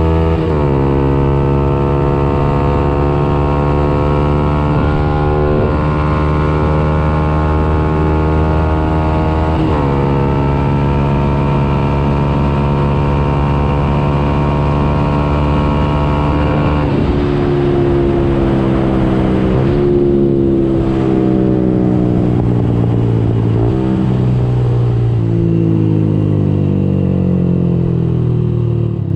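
Yamaha YZF-R125's single-cylinder four-stroke engine through a Radical Racing exhaust with the dB-killer removed, heard from the rider's seat under hard acceleration. Revs climb slowly and drop sharply at upshifts about half a second and ten seconds in; from about two-thirds of the way the revs fall off, stepping up briefly as it is shifted down.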